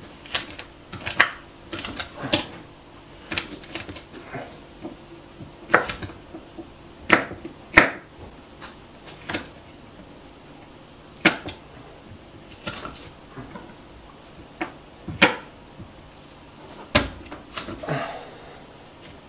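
Kitchen knife knocking on a wooden cutting board as garlic cloves are cut: sharp, irregular knocks, roughly one a second.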